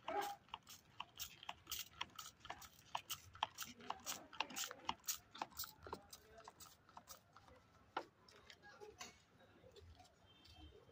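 Handheld plastic spray bottle being squeezed rapidly to mist potted plants: a quick run of short spurts, several a second, thinning out after about seven seconds.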